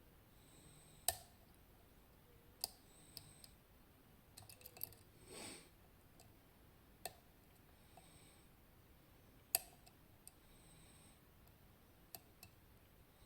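Lock pick and tension wrench working the pins of a West 955 high-pin-count pin-tumbler lock during single-pin picking: scattered sharp metallic clicks every second or two, with a quick cluster of small clicks about a third of the way in, followed by a short soft rush.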